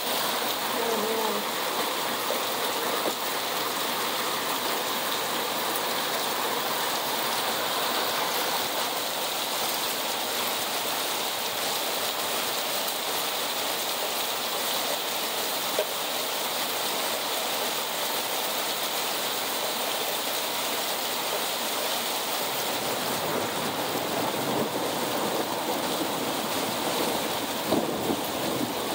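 Heavy rain pouring down in a thunderstorm: a steady, dense hiss of downpour, with a few short ticks near the end.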